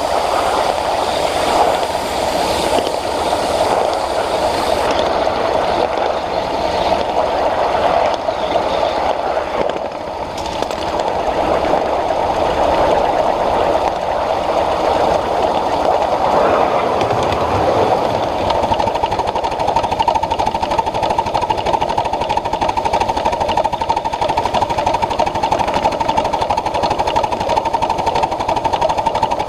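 Ride-on scale live-steam Pacific locomotive and its passenger cars running along the track, a steady rapid mechanical clatter.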